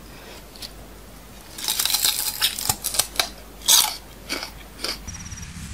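Crunching bites and chewing of raw bitter melon: a run of crisp crackles starting about one and a half seconds in, the loudest crunch a little past the middle, then a few smaller crunches.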